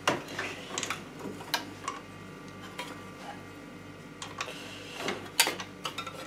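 Scattered sharp clicks and light metal knocks from hands handling the workpiece in a stopped lathe chuck and moving the clear plastic chuck guard, over a steady low hum with an even pulse.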